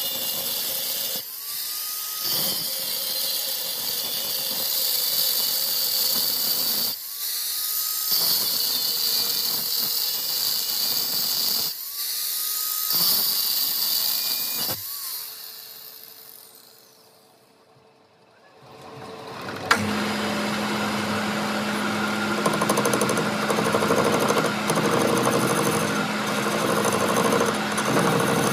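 A power tool running with a loud, hissy, high-pitched noise, broken by brief dropouts, then fading away. After a sharp click near the two-thirds mark, a different machine starts and runs with a steady low hum.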